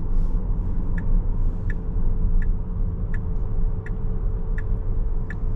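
Turn-signal indicator ticking evenly, about three ticks every two seconds, inside a moving Tesla Model S Plaid's cabin over a steady low rumble of tyre and road noise.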